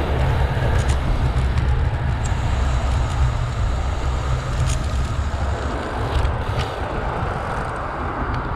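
Wind buffeting the microphone of a camera on a moving road bike: a steady low rumble with road noise and a few faint clicks.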